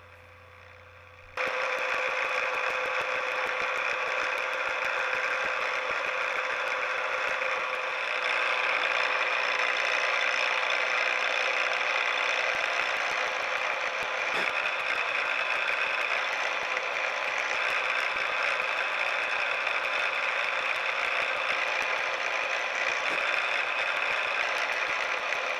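Tormach CNC mill's spindle running steadily as it drills holes in brass bolster stock, a spot drill first and then a twist drill. The machine sound starts about a second and a half in and gets a little louder about eight seconds in.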